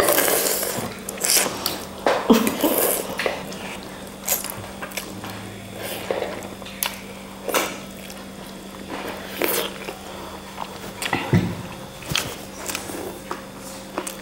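Eating noises from someone eating pork thukpa noodle soup: wet chewing and mouth sounds with scattered sharp clicks, a few louder ones near the start and about eleven seconds in.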